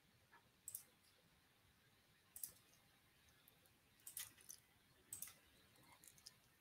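Near silence with a few faint, short clicks scattered through it, from working a computer.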